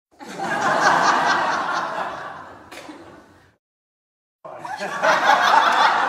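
Canned crowd laughter sound effect, played as two separate clips. The first swells and fades out over about three seconds. After a second of silence the second laughter clip starts.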